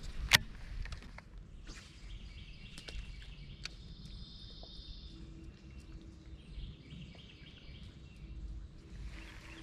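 Birds singing and chirping over a steady low background rumble, with one sharp click about a third of a second in.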